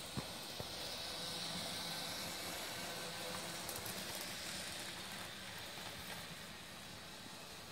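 HO-scale Baltimore and Ohio 4-4-0 model locomotive and its passenger cars running on the track: a faint, steady whir of the motor and the wheels on the rails. It grows a little louder for a few seconds as the train passes close, and there is one sharp click just after the start.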